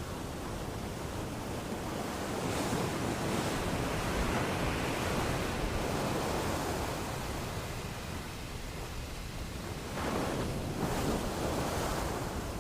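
Ocean waves washing onto a shore: a steady rushing surf that swells, eases off, then surges again about ten seconds in.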